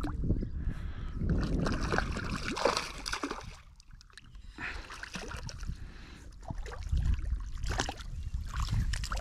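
River water splashing and sloshing, with a low rumble underneath; it eases briefly about four seconds in.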